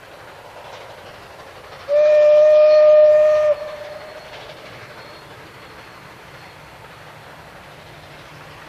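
Steam locomotive whistle sounding one steady blast of about a second and a half, about two seconds in, over the running noise of the passing steam train.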